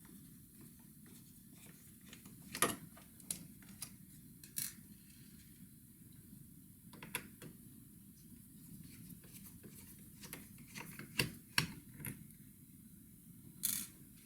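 Hands taking apart an ASUS X555L laptop: scattered sharp clicks and light knocks of plastic case parts and small tools, about a dozen over the stretch, with a cluster near the end.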